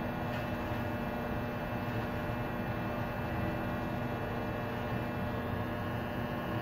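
Steady electrical hum with a light hiss, even throughout.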